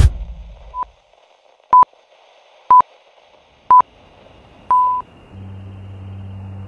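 An electronic beep tone sounding five times, about once a second, with the last beep held longer, like radio time-signal pips. About five seconds in, a low steady drone comes in.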